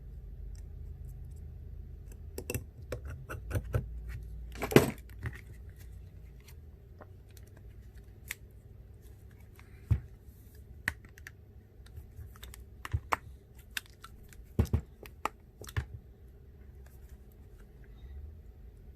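Scattered small clicks and taps of a phone and small repair tools being handled on a work surface, with a cluster of clicks near the start, the loudest about five seconds in, and single clicks spaced out later.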